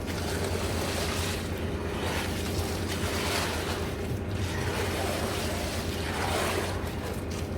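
A steady low engine drone with a rushing noise over it that swells and fades every second or so.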